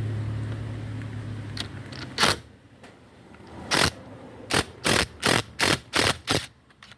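Impact driver fired in short bursts on the tamper-proof Torx screws that hold the steering-wheel airbag: one burst about two seconds in, then a quick run of six or seven brief bursts about a third of a second apart near the end.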